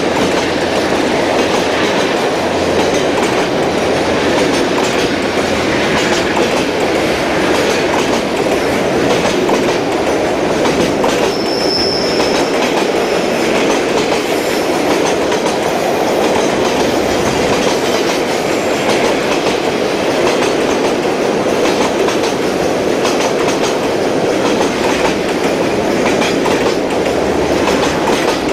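Freight train's wagons rolling steadily past, a continuous rumble with the clickety-clack of wheels over rail joints. A brief high squeal about twelve seconds in.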